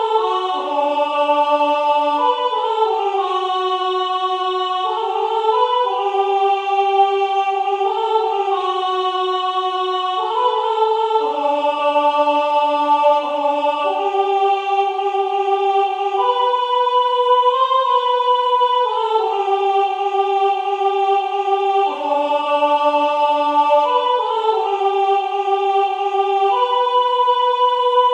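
MIDI practice track of the mezzo-soprano part of a three-part women's choir song, played in a choir-voice sound: steady, evenly held notes in close chords that move together every second or so.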